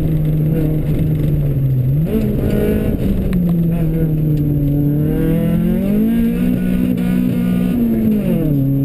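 Rally car engine heard from inside the cockpit under hard driving, its pitch sagging, then jumping up sharply about two seconds in. It climbs again around five to six seconds in and drops near the end as the revs change with throttle and gear changes.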